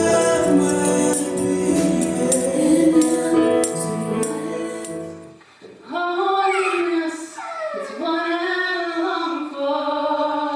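Upbeat music with singing and a tambourine for about five seconds, which stops abruptly; then a single voice sings alone, unaccompanied, with sliding, held notes.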